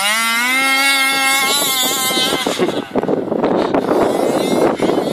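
Rovan 29cc two-stroke engine of an HPI Baja 5B 1/5-scale RC buggy revving, its pitch climbing and then holding. About two and a half seconds in, the note gives way to a rough, noisy rush.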